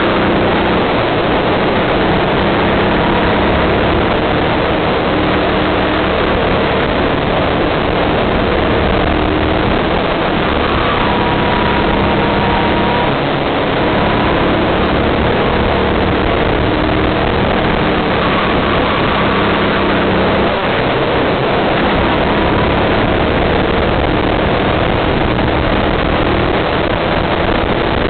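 Kart engine running hard at racing speed, heard from the driver's seat, its note rising and falling as the kart accelerates and brakes through the corners, mixed with a heavy rush of wind noise.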